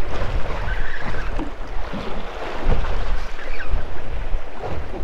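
Wind buffeting the microphone, with a low rumble that rises and falls, over small waves lapping against the hull of a small boat.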